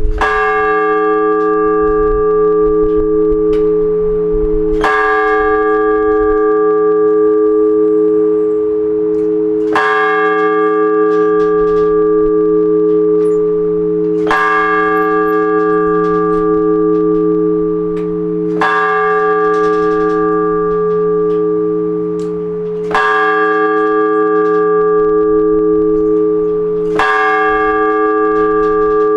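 One Orthodox church bell struck in slow, measured single strokes, seven in all, about every four to five seconds. Its deep hum rings on unbroken between the strokes. This is the blagovest, the single-bell ringing that announces the start of the all-night vigil service.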